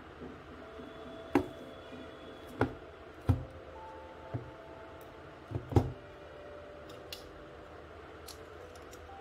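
A tape-wrapped cardboard parcel being set down and handled on a wooden tabletop: several sharp knocks and taps, the loudest a double knock about six seconds in.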